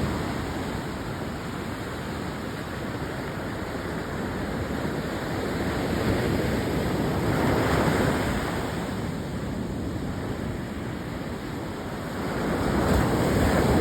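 Ocean surf washing onto the beach, a steady rush that swells as waves break, about halfway through and again near the end, with wind buffeting the microphone.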